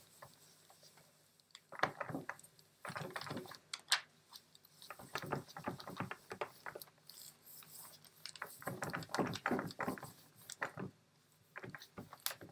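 Baren rubbed by hand back and forth over a sheet of acetate on a linocut print, a run of quick, irregular rubbing strokes as the paper is burnished onto the inked block; the strokes die down near the end.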